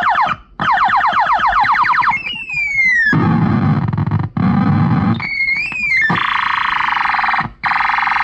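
Retro electronic sound effects from a 'Space War' sound-effect chip. First comes a rapid train of falling zaps. Then a single long falling whistle drops into a noisy low rumble, like the classic bomb falling and exploding. It ends with a rising, warbling tone and a steady buzzing tone.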